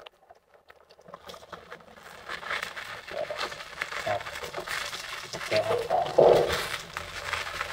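Fish frying in hot oil in a nonstick pan, sizzling and crackling, the sizzle building up after about a second. A brief louder sound about six seconds in.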